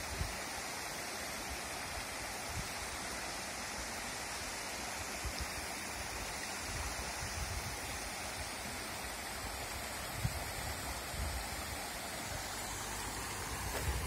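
Steady rush of water: a shallow, stony mountain river running over rocks and riffles, together with a small waterfall cascading down a rock face.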